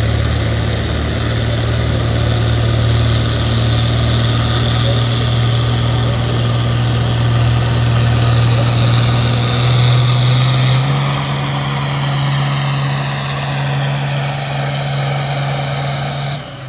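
Farm-stock pulling tractor's engine running hard under load as it drags the sled, a steady heavy drone that steps up slightly in pitch about eleven seconds in, with a faint high whine climbing above it. It cuts off suddenly near the end.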